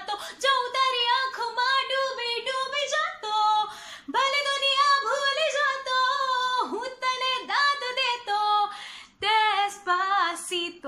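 A woman singing solo with no accompaniment, in sung phrases with short breaks about four and nine seconds in.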